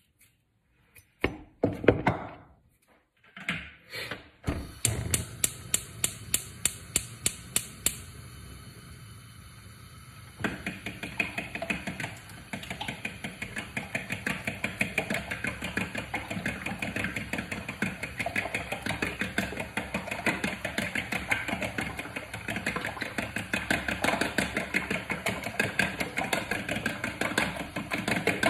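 A few loud knocks against a bowl, then a gas hob's igniter clicking about four times a second for some three seconds until the burner catches with a steady hiss. From about ten seconds in, a fork beats eggs in a plastic bowl, making fast, even tapping.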